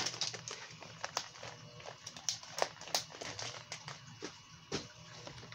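Plastic packs of soft-plastic fishing baits being handled: scattered light clicks and taps with a little crinkling, irregular and unevenly spaced.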